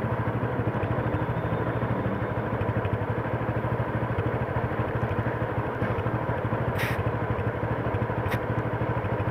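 Motorcycle engine idling steadily with an even pulse. Two short clicks come in the second half.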